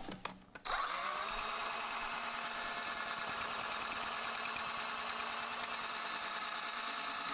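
Electric drill spinning a Mix-Stir wand in a glass carboy of wine. It starts under a second in, spins up and then runs at a steady speed, stirring the wine to drive the dissolved carbon dioxide out (degassing).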